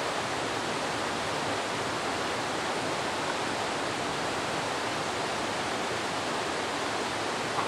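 Steady rushing of running water, even and unbroken, with no separate splashes or other events.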